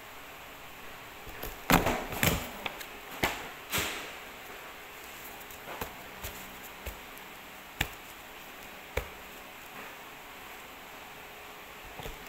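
A lever desk hole punch being worked on a stack of paper, with the sheets handled and riffled: a cluster of sharp knocks and paper rustling about two to four seconds in, then single sharp clicks and taps about a second apart.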